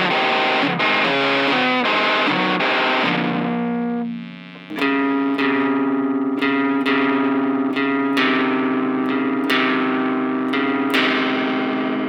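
Music: distorted electric guitar playing a quick run of changing notes, dropping away briefly about four seconds in, then a held chord struck again about twice a second.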